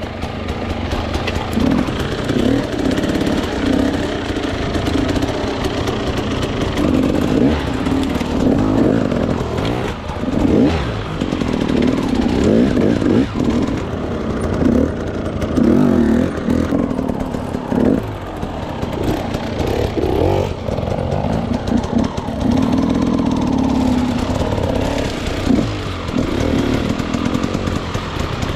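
Dirt bike engine revving up and down off-road, its pitch rising and falling repeatedly with the throttle.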